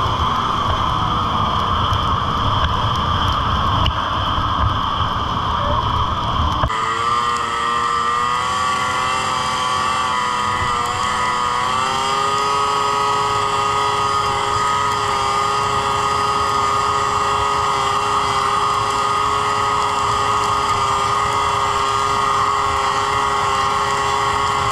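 Yamaha SXR 600 three-cylinder two-stroke snowmobile engine running at speed, with wind buffeting the microphone. About seven seconds in the wind rumble drops away suddenly, leaving the engine's steady whine, which wavers in pitch for a few seconds and then holds.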